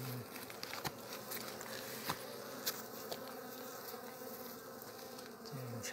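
A swarm of honeybees buzzing steadily around their nest, with a few sharp clicks along the way.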